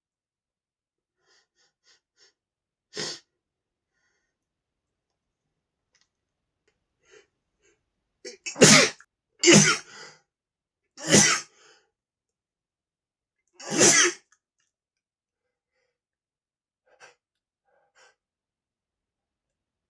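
A man sneezing: one smaller sneeze about three seconds in, then four loud sneezes in quick succession between about nine and fourteen seconds in.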